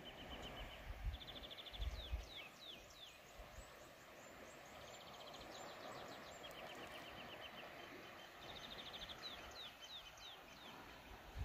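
A songbird singing the same phrase three times: a fast trill of repeated notes, then a few quick downward-sliding notes. Low rumbles come and go underneath.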